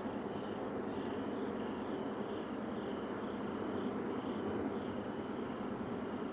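Steady, unbroken low rumbling noise of unknown origin, heard as coming from the sky, with no clear pattern. A short high chirp repeats about twice a second over it.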